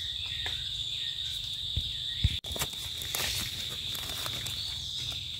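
Insects droning in a steady high-pitched chorus, with a few soft rustles and two short knocks about two seconds in from footsteps and handling on the forest floor.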